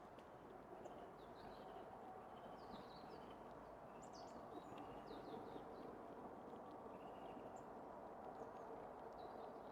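Faint, scattered short chirps and calls of small birds, many dropping quickly in pitch, over steady background noise.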